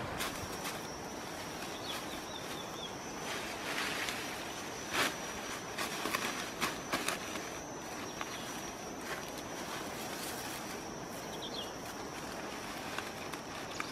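Crackling rustle of dry leaves and leafy branches being handled on a leaf-littered forest floor, busiest a few seconds in. A steady high-pitched insect whine runs through it.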